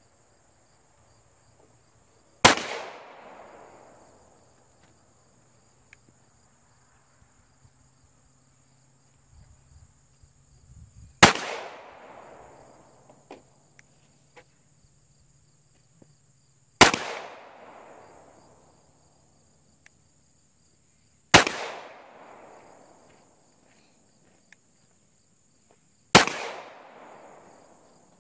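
Five single shots from a CZ Shadow 2 9mm pistol, fired slowly several seconds apart. Each is a sharp crack followed by a short echoing tail.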